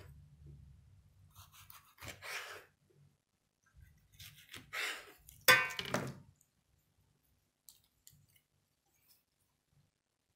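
Large kitchen knife cutting through a rolled lavash wrap on a wooden cutting board: a few short rasping cuts, then a louder, sharp scrape or knock about five and a half seconds in, followed by a few faint clicks.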